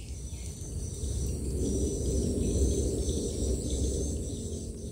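Faint insects chirping in a steady high drone over a low rumbling noise that swells through the middle.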